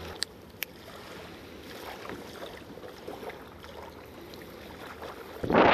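Steady outdoor wind and water noise, with two sharp clicks about a quarter and two-thirds of a second in. A loud rush of noise starts just before the end.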